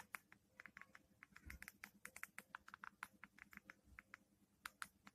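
Faint, quick clicks of a JioPhone's physical keypad buttons being pressed as text is typed, several a second, some in fast runs of repeated presses.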